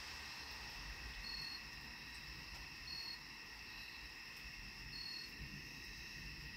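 Night insects, likely crickets, trilling faintly and steadily, with a short higher chirp three times about two seconds apart over a faint low rumble.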